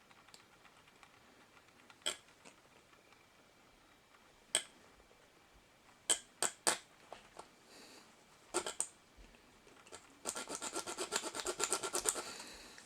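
Small hand saw cutting into the metal body of a 1:64 die-cast toy car: a few isolated scrapes and clicks, then a quick run of rapid saw strokes, about ten a second, for roughly two seconds near the end.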